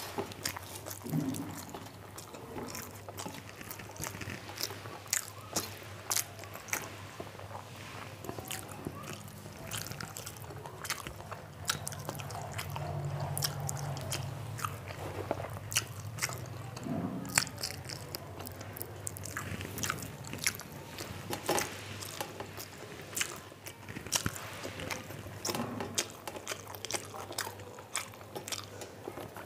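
Close-miked chewing of a mouthful of rice and curry: wet mouth clicks, smacks and small crunches coming irregularly, over a steady low hum.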